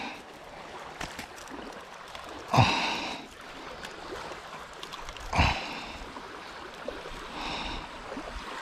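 A man's short breathy exhales, two clear ones about two and a half and five and a half seconds in and a fainter one near the end, over a steady hiss of rain and wind.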